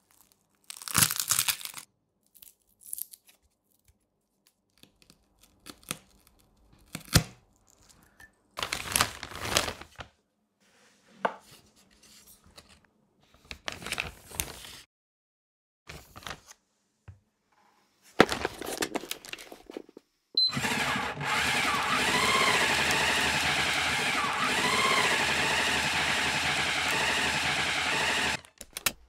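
Plastic vacuum-seal bag crinkling in short, separate bursts as meat is packed into it. Then a Sencor vacuum sealer's pump runs steadily for about eight seconds, drawing the air out of the bag, and stops near the end.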